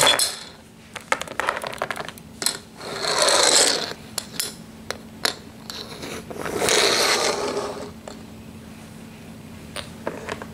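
Small plastic toys being handled on a countertop: scattered clicks and taps, with two longer scraping stretches about three seconds in and about seven seconds in.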